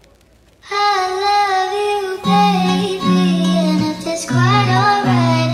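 Background music with a high sung vocal melody, starting about half a second in; a bass line joins about two seconds in.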